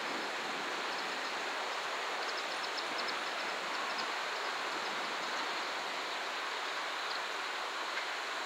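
JR West 227 series electric train approaching on a curve, heard as a steady rolling hiss with faint high ticks now and then.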